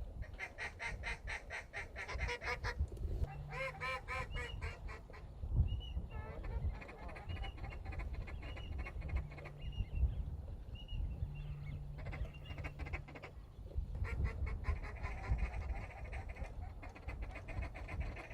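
Ducks calling: bouts of rapid quacking chatter, with short high whistles in the middle stretch. A low rumble runs underneath.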